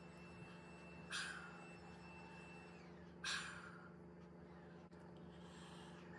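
A woman breathing out forcefully through an open mouth, two short breaths about two seconds apart, over a steady low hum. These are airway-clearance breaths from chest physiotherapy for cystic fibrosis.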